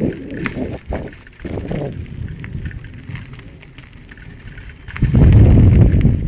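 Gravel crunching and rattling from movement down a gravel forest track, with scattered ticks. About five seconds in, a loud low rumble of wind buffeting the microphone takes over.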